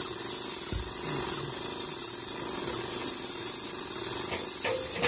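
Airless paint sprayer gun spraying paint in a steady hiss, with a steady low hum underneath.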